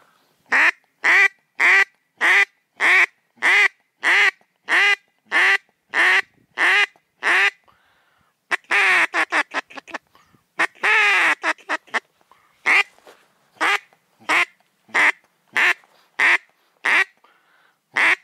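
Duck quacking: a loud, even run of about twelve quacks, nearly two a second, then a few seconds of quick chattering calls, then another even run of quacks.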